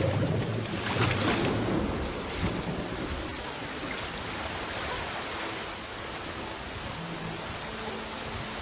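Storm sound of heavy rain pouring down, a dense steady hiss, with a low thunder rumble in the first couple of seconds.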